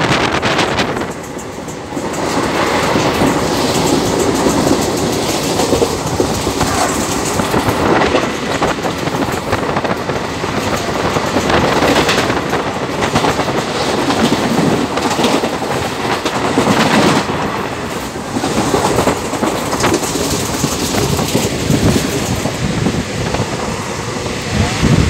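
Express train running at speed, heard from inside a coach at an open door or window: a steady rumble and clatter of the wheels on the rails.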